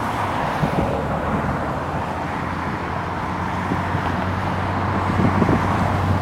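Jet aircraft engine noise, a steady low hum under an even rushing sound, with no sudden changes.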